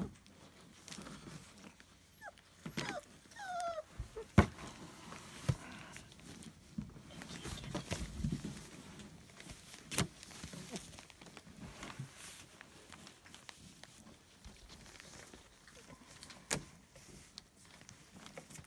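Young puppies giving a few short whines a few seconds in, amid soft rustling and scuffling, with three sharp knocks spread through.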